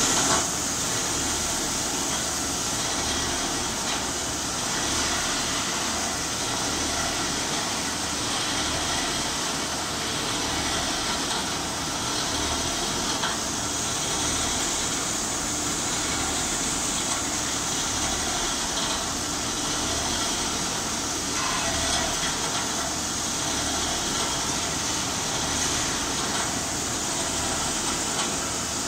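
Horizontal CNC boring machine running, its spindle machining the end of a welded steel lifter frame, giving a steady mechanical noise with a high hiss over a low, evenly pulsing hum.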